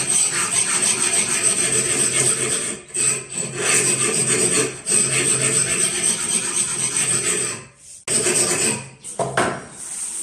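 Abrasive grinding of a high-speed steel bar being shaped into a woodworking flat chisel: a steady rasping with short breaks. It stops about eight seconds in, then returns briefly with a falling pitch.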